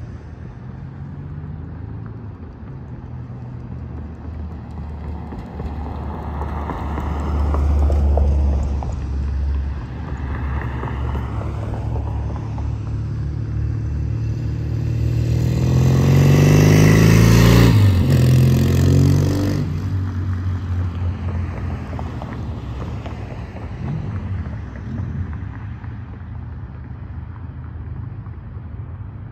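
1975 Norton Commando 850's 828cc parallel-twin engine riding past: it swells and falls as the bike approaches, is loudest about two-thirds of the way in with a drop in pitch as it goes by, then fades away.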